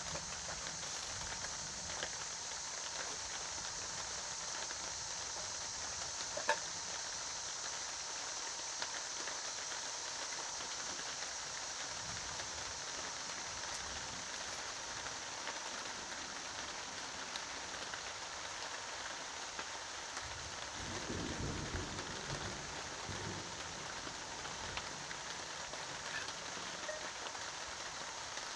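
Steady rain of a thunderstorm falling, a continuous hiss with scattered drip ticks. A brief low rumble swells about two-thirds of the way through.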